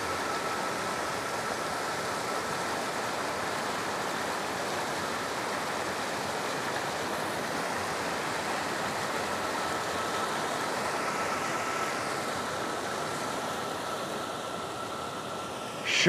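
Steady rush of flowing water at a waterfall, an even noise without a break.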